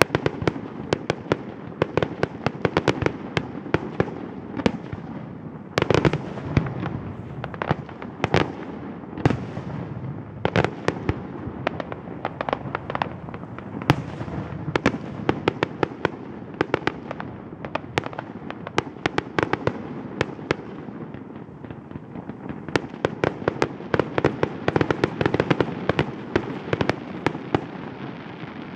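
Aerial fireworks display: a dense, irregular run of sharp bangs and crackles from bursting shells, several a second, over a continuous low rumble.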